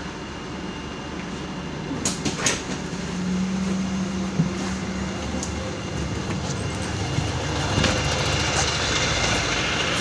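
PAZ-320405-04 Vector Next bus running: a steady engine and road rumble with a few sharp clicks about two seconds in and a low steady hum for a couple of seconds after. The sound grows louder near the end, heard beside the bus from outside.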